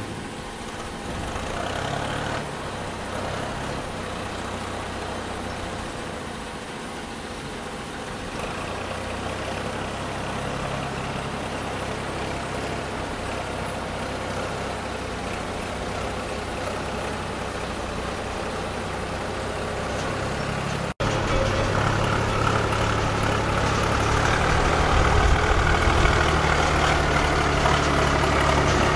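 A tractor loader's engine runs steadily while it hauls a loaded rail hopper wagon along the track. After a brief break about two-thirds of the way through, it is noticeably louder.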